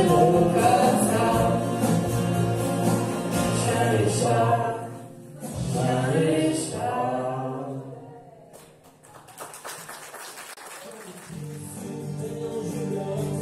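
A mixed group of singers with acoustic guitars performing a song in unison, the last sung phrases ending about eight seconds in. After a short quieter lull, the instruments start the next song near the end.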